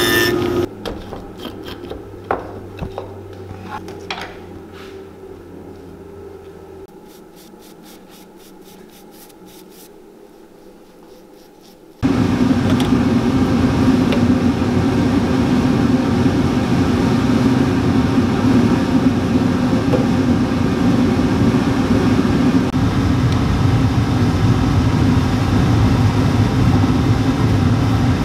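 Workshop machine noise: a few light clicks and taps over a low hum that stops after several seconds, then a loud steady mechanical hum from workshop machinery starts suddenly about twelve seconds in and keeps going.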